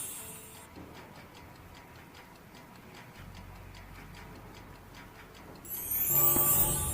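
Clock sound effect ticking steadily and faintly. A high sweeping whoosh fades out just after the start and a louder one comes in near the end, together with music.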